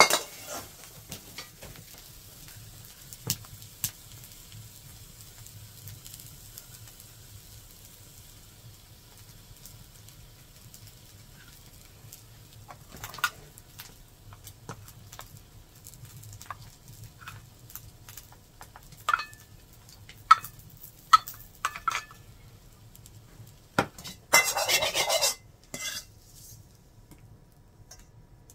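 A metal ladle clinking and scraping in an iron wok. There are scattered sharp clinks, a quick run of them about two-thirds of the way through, then a short loud scrape as the stir-fried egg is scraped out of the wok. A low steady hum sits underneath.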